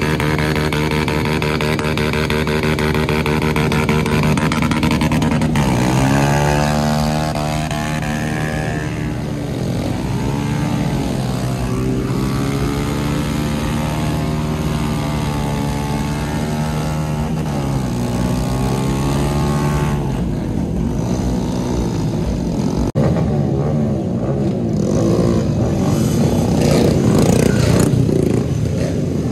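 A high-performance engine revving hard again and again, its pitch climbing and falling, with a rougher, noisier stretch in the last third.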